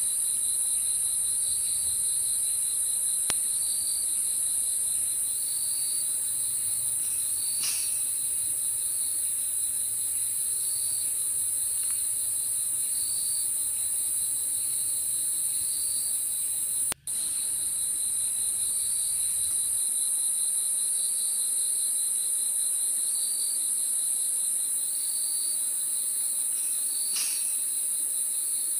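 Crickets chirping at dusk, a steady high-pitched trill with a lower chirp repeating every second or two. The sound cuts out for an instant about two-thirds of the way through.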